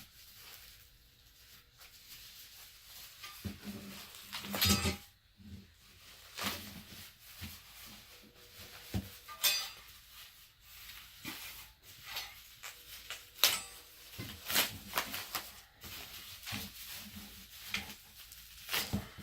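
Parts of a kids' ride-on electric Jeep and their packaging being handled and set down: scattered clicks, knocks and rustles at irregular intervals.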